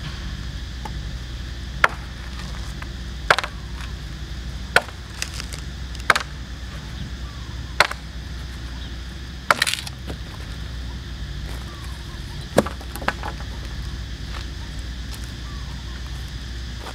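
Machete chopping a wooden pole: about eight sharp strikes, spaced irregularly a second or two apart.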